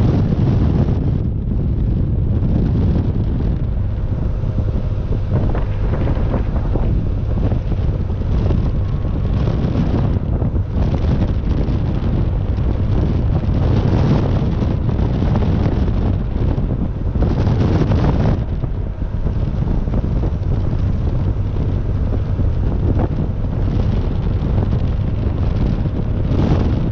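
Open-top 1972 Porsche 914-6 on the move: heavy wind rushing over the microphone, with the car's 2.7-litre twin-plug flat-six engine running underneath.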